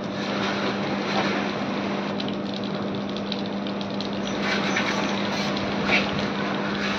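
Steady motor hum with one constant low tone. Light metallic clicks and a short knock about six seconds in come from handling an air conditioner outdoor unit's fan grille.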